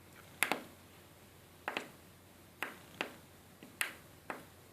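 Small tactile push buttons clicking as they are pressed and released: about six short, sharp clicks at uneven intervals, a couple of them in quick pairs.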